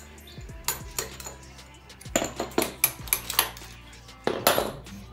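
Metal hand tools, nuts and the scooter's coil-spring shock absorbers clinking and clanking as they are handled during a shock-absorber swap: a few sharp clinks, a quick run of them in the middle, and a louder clatter near the end.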